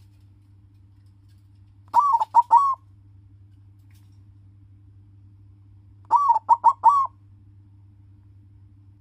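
A zebra dove (perkutut) of the silver colour morph cooing: two short song phrases about four seconds apart, each of about four quick notes.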